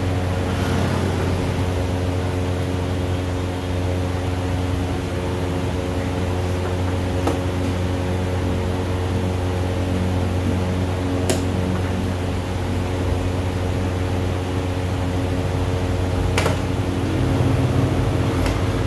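Steady machine hum, like a fan or air conditioner, with three or four sharp clicks several seconds apart from play at a chess table.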